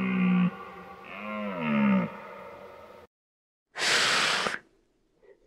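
Two drawn-out, deep animal calls, the second falling in pitch as it fades, followed about four seconds in by a single short, breathy hiss or snort from an animal.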